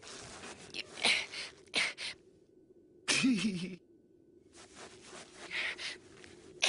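Short breathy gasps and puffs from cartoon dogs tumbling in the snow, with a brief wavering voiced 'ooh' about three seconds in.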